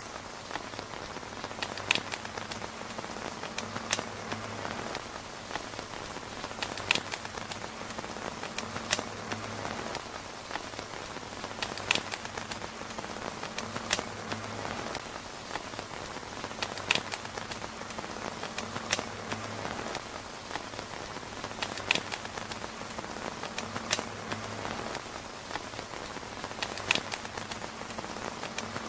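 Steady rain pattering on a tent roof, with sharper, louder drop ticks every couple of seconds. The pattern repeats about every five seconds, like a looped recording.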